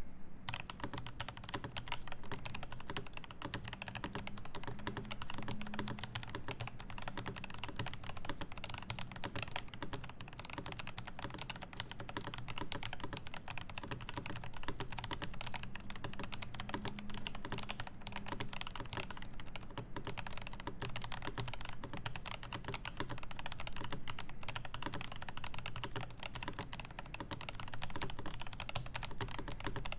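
Dense, rapid clicking that goes on without pause, over a low steady hum.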